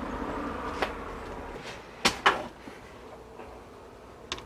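Small metal parts clicking as they are handled: a bronze bushing being seated in the bore of an aluminium blank and a steel socket picked up to press it in. A few sharp clicks, the two loudest close together about two seconds in.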